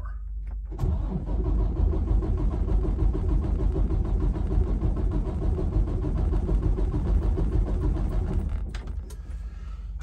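Detroit DD15 diesel cranked on its starter without firing, a steady pulsing churn that starts about a second in and cuts off by itself near the end: an automatic relative compression test, on an engine with weak compression in cylinder six.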